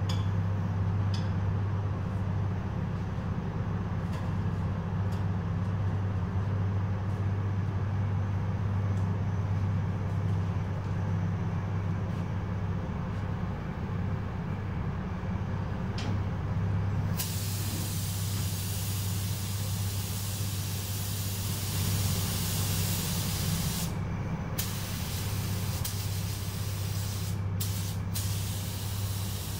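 Steady low hum from the paint booth's ventilation throughout. About halfway through, a paint spray gun starts hissing with compressed air, with a short break and a couple of brief cut-offs near the end.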